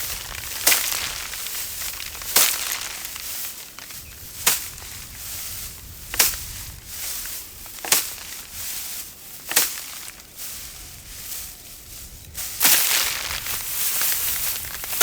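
A bundle of dry rice paddy straw being beaten by hand to thresh out the grain: six sharp whacks about every second and a half to two seconds, each followed by the rustle of straw and falling grain. Near the end the strikes stop and a longer stretch of straw rustling follows.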